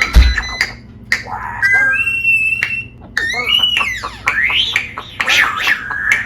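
Pet parrot whistling and squawking: a string of sliding calls, some held steady and others rising and falling, with clicks in between. A low thump sounds right at the start.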